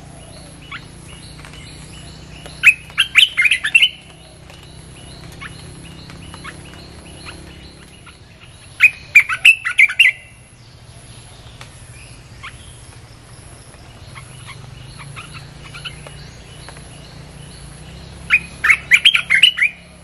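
Olive-winged bulbul song: three bursts of rapid bubbly chattering phrases, roughly eight to ten seconds apart, with a few faint single chips in between.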